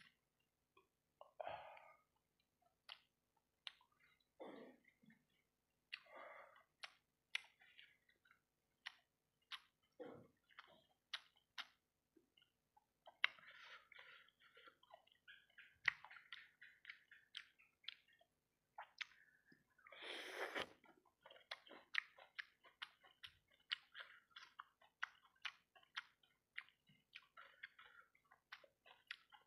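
Close-miked chewing of saucy fried rice-ball skewers: soft, wet mouth clicks and smacks in an uneven run, with one louder, longer mouth noise about twenty seconds in.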